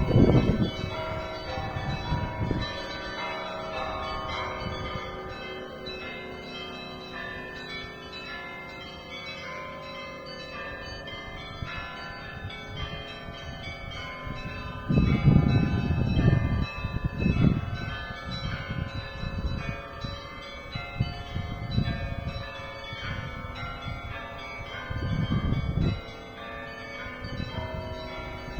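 Russian Orthodox church bells being rung: many bells sound together in a continuous peal, their tones overlapping and ringing on. The peal swells louder at the start, about fifteen seconds in and again near the end.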